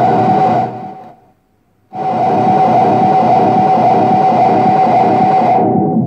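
Korg Monotron Delay analogue synthesizer playing through a speaker: a loud, buzzy held tone with a wavering texture. It fades away to silence about a second in and cuts back in abruptly just before two seconds. Near the end it loses its top end, leaving a low rumble.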